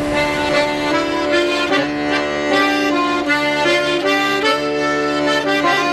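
Traditional folk music on an accordion: an instrumental passage of a fishing song, the tune moving note to note over a steady held chord.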